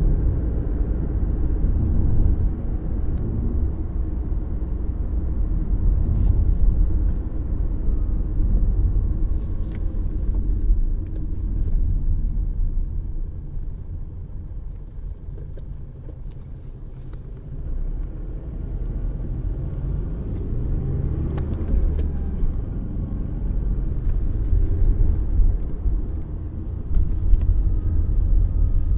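Mercedes C 200 d's four-cylinder diesel engine and tyre rumble while the car is driven on country roads. The level drops for a few seconds around the middle, then picks up again.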